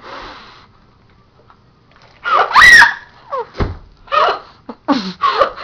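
A girl shrieking and laughing in short bursts, starting about two seconds in after a quiet pause, with the first shriek the loudest. A brief low bump comes partway through.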